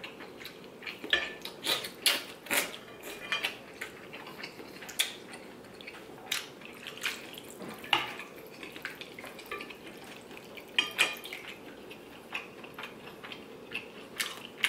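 Wooden chopsticks and a metal spoon clinking and knocking against a large ceramic bowl as ramen noodles are stirred and lifted from the broth, with some dripping of broth. The clicks come irregularly, several a second at times, with short pauses between.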